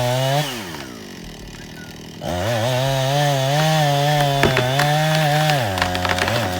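Two-stroke chainsaw engine at high revs, dropping back to a lower idle, then revved hard again at about two seconds in and held high with a wavering pitch for about three seconds before falling back near the end.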